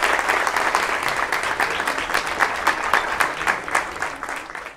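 Audience applauding: many hands clapping at once, steady and then fading out near the end.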